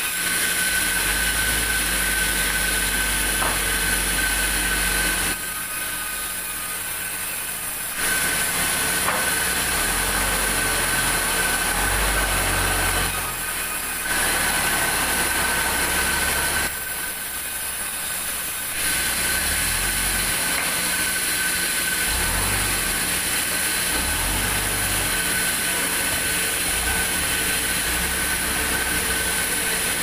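Large vertical band saw running with a steady high whine and a low rumble as it cuts through timber. The noise drops off three times for a second or few between cuts.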